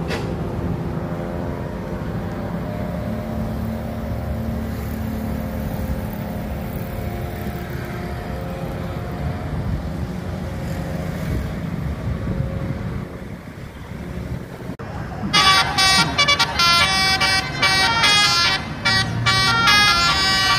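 Bus engines and traffic run steadily for the first two-thirds. About two-thirds in, a bus's basuri telolet horn starts playing a loud melody of short, stepped notes.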